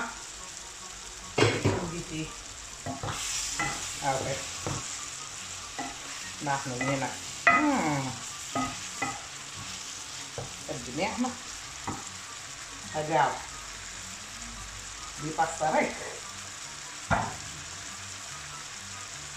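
Chicken pieces and sliced courgette sizzling steadily in a pan, while a wooden spatula stirs them and scrapes and knocks against the pan in irregular strokes.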